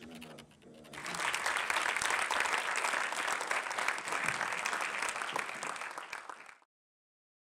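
Audience applauding, a dense clatter of many hands clapping that starts about a second in and cuts off suddenly near the end.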